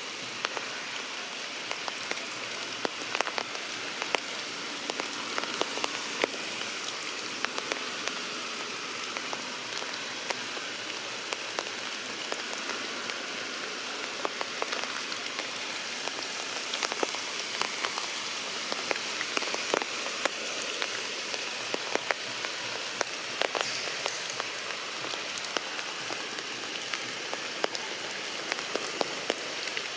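Heavy rain falling steadily, with frequent sharp taps of individual drops.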